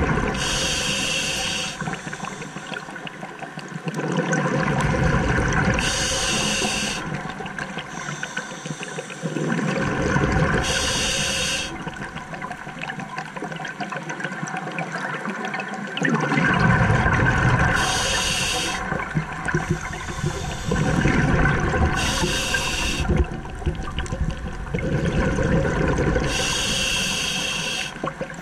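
Scuba diver breathing through a regulator underwater, six breaths in all: each a short hiss as air is drawn through the regulator, followed by a few seconds of rumbling, bubbling exhalation.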